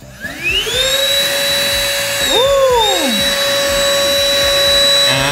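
Ingco cordless lithium-ion handheld vacuum cleaner switched on: the motor spins up in a rising whine over about a second, then runs at a steady high whine while it sucks up crumbs. A brief rising-and-falling whistle comes about halfway through.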